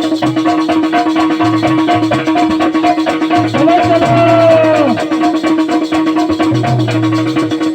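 Instrumental passage of a Bundeli rai folk song: rattling percussion and plucked strings over a steady held drone, with a sliding melodic note about halfway through.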